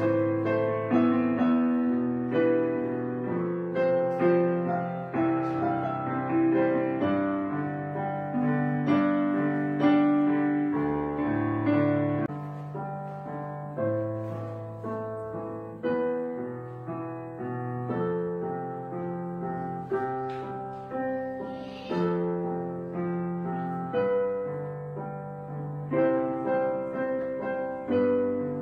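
Background piano music: a gentle, slow piece of struck chords and notes that ring and fade, changing every second or two.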